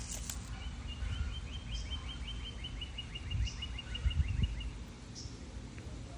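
A bird's rapid trill of short, slightly falling high chirps, about five a second for about four seconds, over outdoor background noise, with a few low thumps about three and four seconds in.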